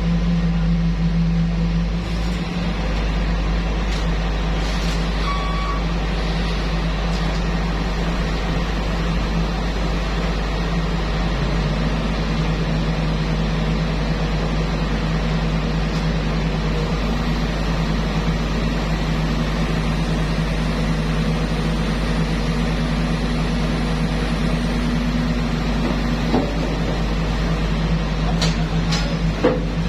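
Sumitomo SH210 hydraulic excavator's diesel engine running steadily with a deep, even drone.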